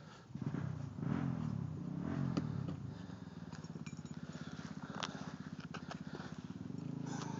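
An off-road vehicle's engine working up a rocky trail: its low note rises and falls with the throttle in the first couple of seconds, then runs on steadily at low revs. A few faint clicks sound over it.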